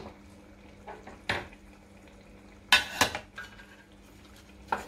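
Wooden spatula stirring a thick curry in a metal pot, knocking and scraping against the pot about four times, over a faint steady low hum.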